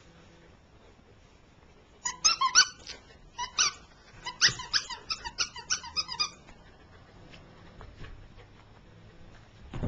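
A dog's squeaky toy squeaking in a fast run of short, high-pitched squeaks as the dogs play with it. The squeaks start about two seconds in and stop about four seconds later.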